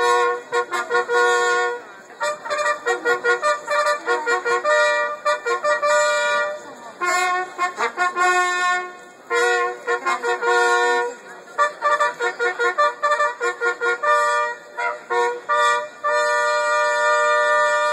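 Two long straight herald trumpets with hanging banners playing a fanfare: runs of quick repeated notes alternating with held notes, ending near the end.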